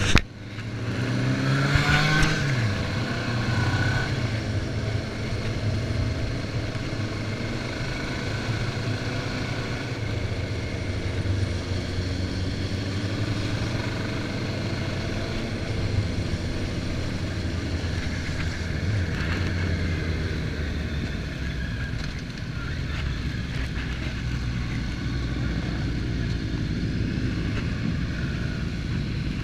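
Motorcycle engine running under way on the road, heard from the rider's seat. The revs climb and then drop about two seconds in, and after that the engine runs fairly steadily under a rush of wind noise.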